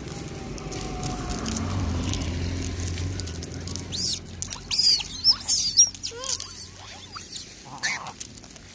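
A low rumble for the first three seconds, then from about four seconds in a quick run of short, high-pitched monkey squeaks, with a few lower squeaks after them.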